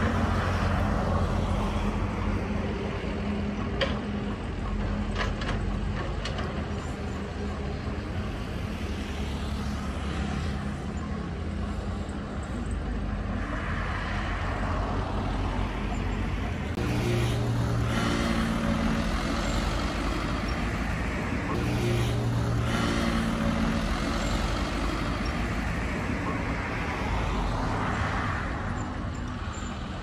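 Diesel engine of a Caterpillar 313C tracked excavator running as it digs soil, its note swelling several times under hydraulic load in the second half. A few sharp metallic clanks come about four to six seconds in.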